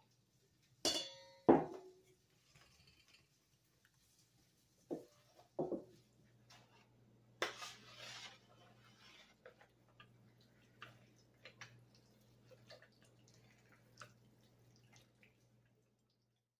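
Stainless steel kitchenware clinking and knocking, with a food mill among it. The loudest knock, about a second and a half in, rings on briefly like a struck metal bowl. A short scraping rush comes about eight seconds in, then a run of small irregular clicks, all over a faint steady hum.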